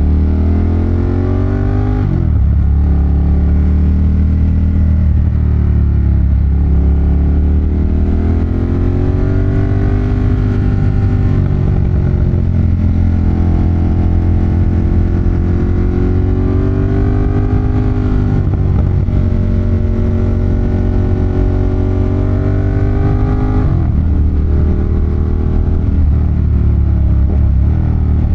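Ducati Monster 1200's L-twin engine under way, its pitch rising under throttle and dropping away several times as the rider shifts and rolls off for the bends.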